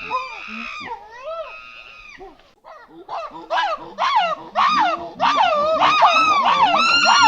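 Monkeys calling: a few wavering calls, a brief break about two and a half seconds in, then a rapid run of loud calls that rise and fall in pitch, about two a second.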